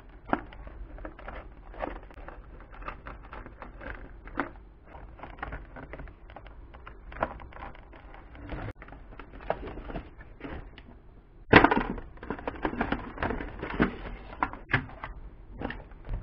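Small precision screwdriver turning screws out of metal plates in a cardboard box, with scattered scraping clicks and handling noise. About two-thirds of the way through there is one loud knock, then busier rustling and clattering of cardboard and loose plastic parts as the box is opened.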